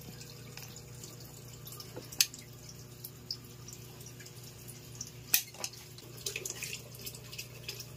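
Sharp metallic clicks from a caulking gun being handled and worked: two loud ones about two and five seconds in, then a few lighter ticks, over a steady low hum.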